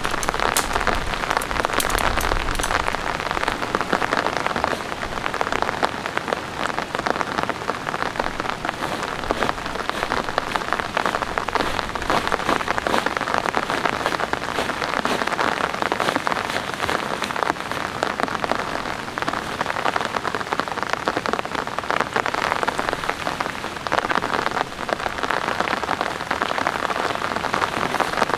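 Steady heavy rain, a dense, even patter of drops on a surface.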